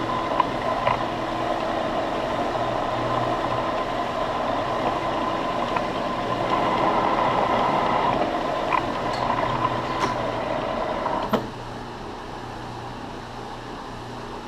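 Victor engine lathe running under power, with a steady whine from its spindle and gearing and a few sharp clicks, while it takes a pass on a 24-pitch thread. About 11 seconds in it is shut off, and the sound falls to a lower steady hum.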